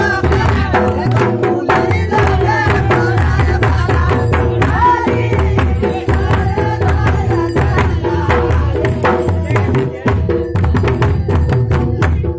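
Two-headed barrel drums (dhol) beaten by hand and stick in a fast, steady folk rhythm, with voices over them.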